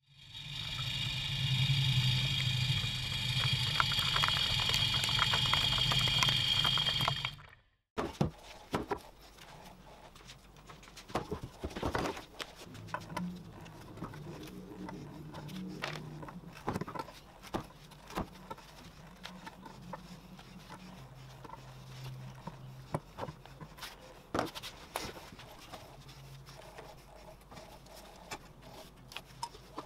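A loud steady whir with a high ringing tone for about seven seconds, which stops abruptly. After it come scattered knocks, clicks and scrapes of hand tools on reclaimed hardwood beams: a nail puller digging into the wood, then the beams being handled and marked with a rule and marker.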